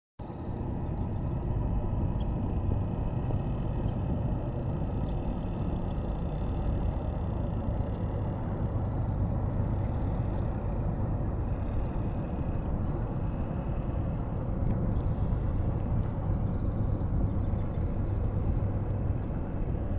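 Steady low outdoor rumble, with faint brief high chirps scattered through it.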